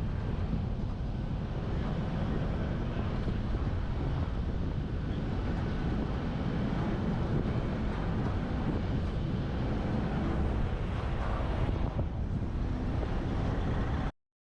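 Wind buffeting a roof-mounted GoPro on a moving truck, with the truck's road noise underneath: a steady, low rumbling noise that cuts off suddenly near the end.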